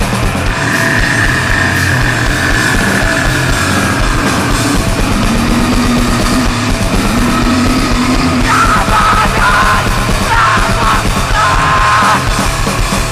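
Grindcore song: loud, aggressive distorted band music with yelled vocals.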